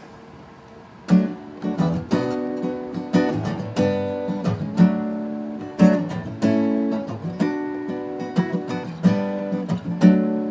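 Acoustic guitar being played: chords strummed roughly once a second with single picked notes between, starting about a second in.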